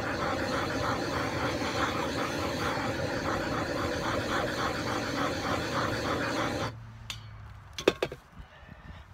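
Propane torch flame running with a steady, fluttering hiss while it heats the end of a plastic water pipe to soften it. It shuts off abruptly about two-thirds of the way through, followed by a few sharp knocks of the torch being handled.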